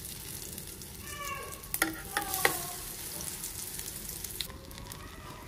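Hot oil sizzling steadily in an iron kadai as spice-coated eggplant slices shallow-fry. A few sharp clicks come about two seconds in.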